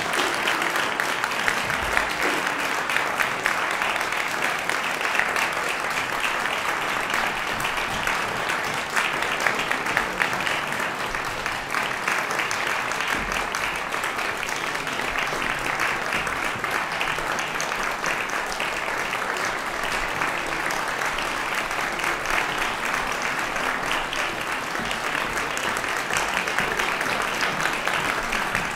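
Audience applauding steadily after a piece ends: dense, even clapping that holds at the same level throughout.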